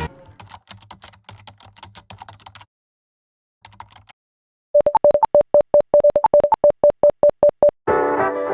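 Faint clicking, then a rapid run of about twenty short, identical electronic beeps over three seconds, like a text-typing sound effect, before music with brass comes in near the end.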